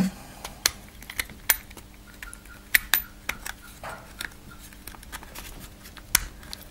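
Scattered light clicks and knocks of hard plastic parts being handled: a Dyson DC07 clutch assembly being turned over in the hands while its new belt is held in place.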